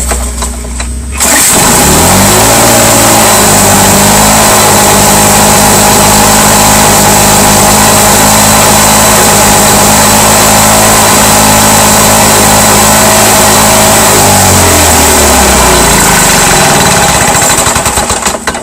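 Lawn Boy 4630 mower's two-stroke F engine on a cold start: it catches about a second in, picks up speed and runs steadily, then winds down in pitch and stops near the end.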